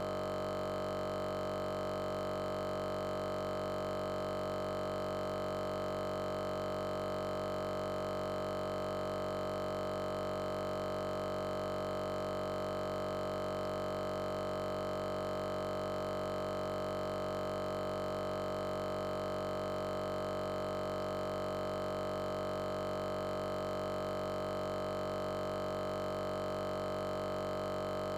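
A steady, unchanging electronic drone of many held tones, strongest in the middle range, with no variation at all. It is a digital audio glitch: the sound is frozen on one fragment.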